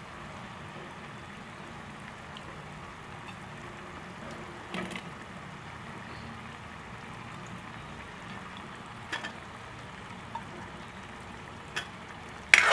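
Thick masala gravy with black-eyed peas simmering in a steel kadhai: a faint, steady bubbling hiss with a few light clicks. Near the end comes a sharp clatter as potato pieces are dropped into the pan.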